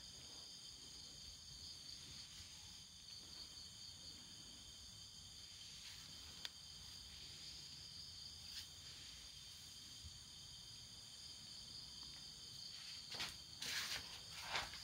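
Crickets chirring steadily, a faint high buzz. A few brief noises near the end.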